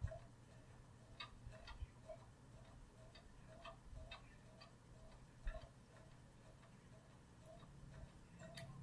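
Faint, regular ticking, roughly three ticks a second, with a few light clicks scattered among them.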